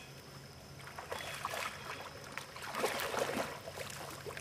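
Muddy pond water sloshing and splashing as a dog wades out and starts to swim, in soft irregular splashes from about a second in.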